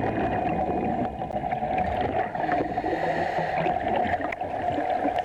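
Underwater sound: steady bubbling and gurgling water with a constant drone beneath it and scattered small crackles.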